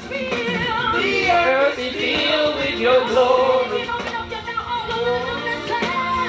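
Singing of a gospel worship song, held and melismatic lines with wavering pitch, through the microphone and small speaker of a portable mini karaoke machine.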